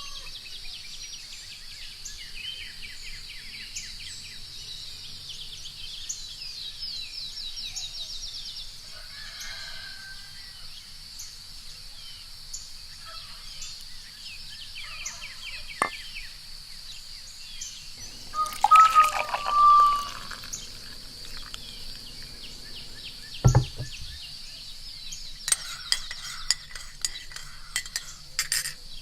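Morning ambience: a steady high drone of crickets under scattered bird chirps, with a rooster crowing about two-thirds of the way in. There are a couple of single clinks of china, then near the end a run of quick teaspoon clinks against a cup as tea is stirred.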